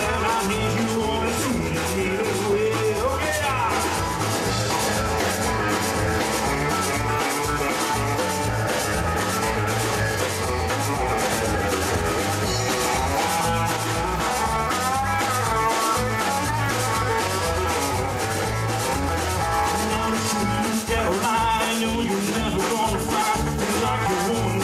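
Live Tex-Mex rock band playing an instrumental section: accordion, electric guitars and drum kit with a steady beat.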